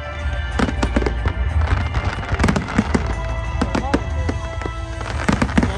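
Fireworks display: many shells bursting in quick, irregular succession, a dense run of sharp bangs and crackles.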